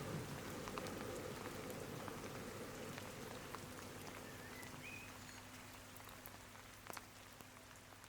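Rain falling, with scattered drops ticking, slowly fading away.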